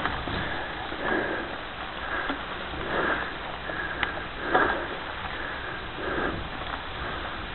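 Mountain bike riding over a dry leaf-litter trail, with the tyres crunching and the bike rattling, while the rider breathes hard in short puffs about once a second.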